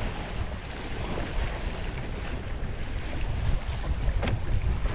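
Wind buffeting the microphone over the rush and slap of choppy water along the hull of a small Alcort Sunfish sailboat under sail. A brief sharp splash or knock stands out a little past four seconds in.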